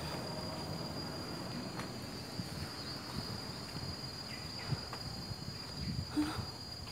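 An insect keeps up a steady, unbroken high-pitched buzz, over a low background rumble with a few faint knocks.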